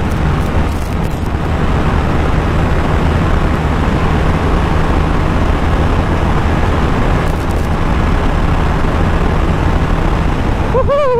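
KTM Duke 390's single-cylinder engine running without its exhaust, held at steady high revs at around 160 km/h, with heavy wind rush.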